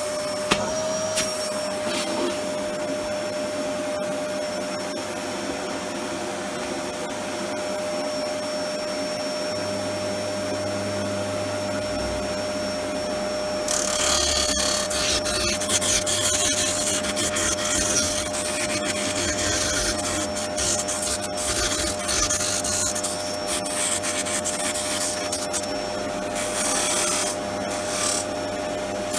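Homemade disc sander driven by a treadmill motor, running with a steady whine; about halfway through, a harsh sanding hiss sets in as a workpiece is pressed against the spinning abrasive disc, easing off and returning in spells toward the end.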